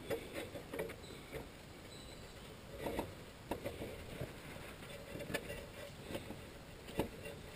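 Faint handling noises of hands working at a mud-caked car wheel: scattered soft clicks, knocks and scuffs, the sharpest about three seconds and seven seconds in.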